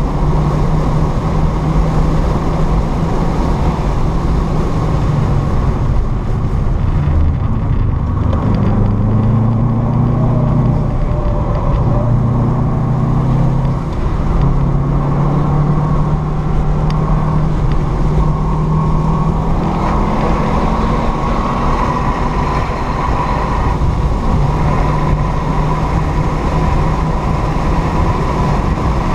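Car engine heard from inside the cabin on a track lap: pulling hard at high revs, then its note drops and shifts about a quarter of the way in as the car slows for a corner. It climbs steadily again under full throttle in the second half, over tyre and wind noise.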